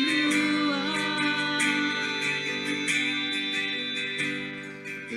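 Instrumental break of a worship song: acoustic guitar strumming chords that ring on between strokes.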